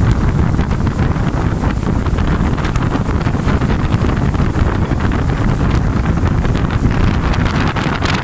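Wind rushing hard over the microphone on a speeding motorboat, with the steady rush of the boat's motor and wake underneath.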